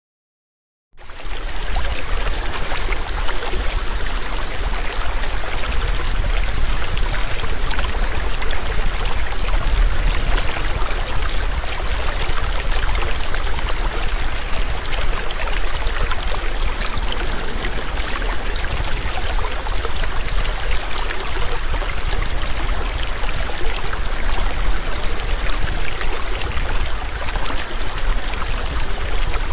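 Waterfall's steady rushing water, a dense hiss over a deep rumble, starting out of silence about a second in.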